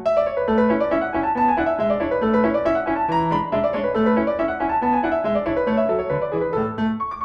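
Background piano music: quick runs of notes rising and falling in a repeating pattern.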